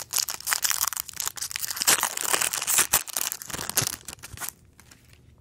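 Foil trading-card pack wrappers (1999 Donruss football) being crinkled and torn open by hand: a dense crackling rustle that stops about four and a half seconds in.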